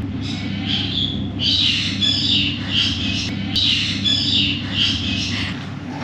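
Birds calling: a rapid run of short, harsh, high calls, about two a second, starting about a second and a half in, over a steady low hum.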